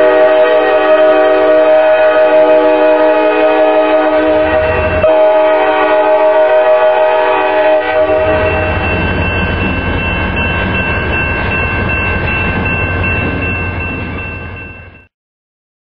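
Air horn of CSX EMD SD40-2 locomotive 8826 sounding a long chord blast for a grade crossing, broken briefly about five seconds in and stopping about eight seconds in. After that comes the low rumble of the train rolling past with a steady high ringing, until the sound cuts off suddenly near the end.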